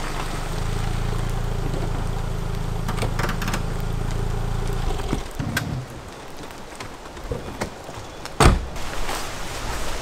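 Mini convertible's four-cylinder engine idling steadily, then switched off about five seconds in. A few light clicks follow, then a single loud slam from the car's bodywork about eight and a half seconds in.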